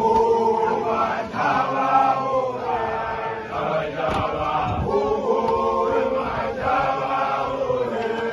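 Group of makoloane, young Basotho initiation graduates, chanting together in rough unison, in short phrases of held notes with many voices overlapping.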